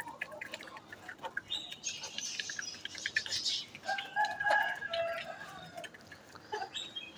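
Chickens clucking and calling as they feed, with a longer, drawn-out call about four seconds in.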